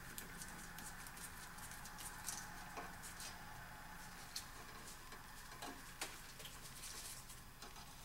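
Faint scratching and scattered small clicks of gloved fingers twisting plastic wire nuts off thin 24-volt control wires to disconnect a float switch.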